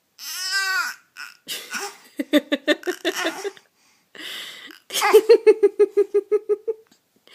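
A six-month-old baby vocalizing: a high squeal that rises and falls in pitch, then stretches of rapid, pulsing babble. After a breathy sound, it ends with a run of quick staccato 'ah-ah-ah' pulses.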